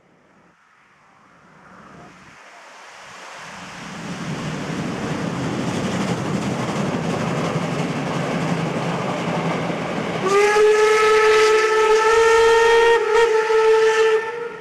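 Steam locomotive 65 1049, a DR class 65.10 tank engine, passing with a passenger train: its running noise grows louder over the first few seconds and holds, then about ten seconds in it sounds a single long steam whistle held steady for about four seconds.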